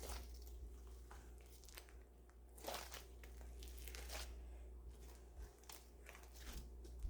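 Faint crackling and crunching of floam slime, glue slime packed with small foam beads, being squeezed and handled, with a few scattered louder crackles.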